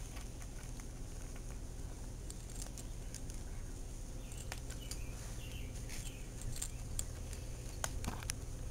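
Cat crunching dry kibble from a stainless-steel bowl: faint, irregular crunches and clicks over a steady low hum, a few louder near the end, with a few faint bird chirps in the middle.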